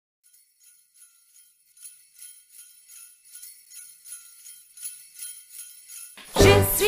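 Jingle bells shaken in a steady rhythm, about three shakes a second, growing louder. About six seconds in, the song starts: singing with instrumental accompaniment.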